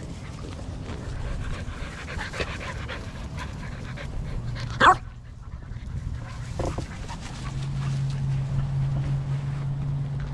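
American Bully puppy panting as it plays, with one short, sharp bark about five seconds in and a smaller yelp soon after.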